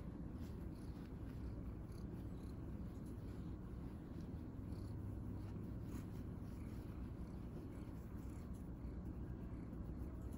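A cat purring, a steady low rumble.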